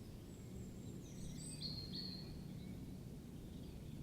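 Faint countryside ambience with a low steady rumble and a few distant high bird chirps about a second in.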